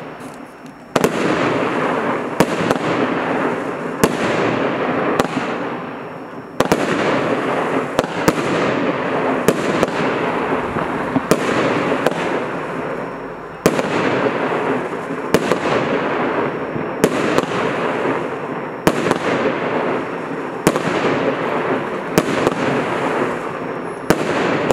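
Asahi, a 30 mm, 19-shot consumer firework cake, firing: sharp reports come about once a second, over a dense, continuous crackling hiss. The volley starts about a second in.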